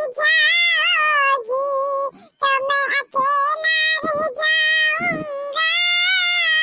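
A high, pitch-raised cartoon voice sings long drawn-out notes with vibrato in several phrases, separated by short breaths: a sad bride's-farewell song.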